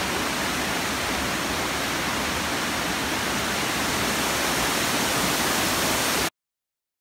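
A small mountain waterfall and its rocky creek rushing, a steady dense roar of falling water that cuts off suddenly near the end.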